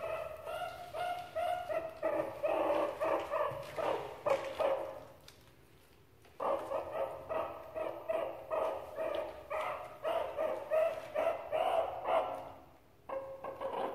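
Meerkats calling during hand-feeding with anchovies: rapid strings of short, yapping chirps, several a second. The calls break off for about a second twice.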